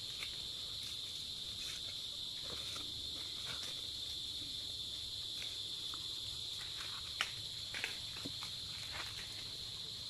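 Steady high-pitched insect chorus, with scattered soft snaps and rustles of corn husks being peeled by hand and one sharper click about seven seconds in.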